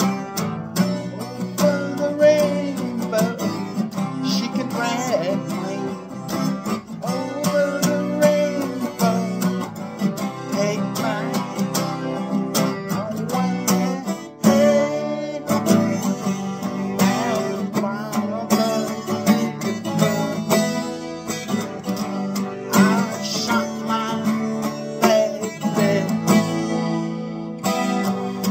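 A 12-string acoustic guitar strummed steadily in a rock rhythm, with a man singing along.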